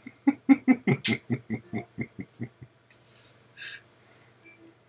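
Men laughing: a quick run of short 'ha' pulses, about five a second, fading out over two and a half seconds, then a short breath.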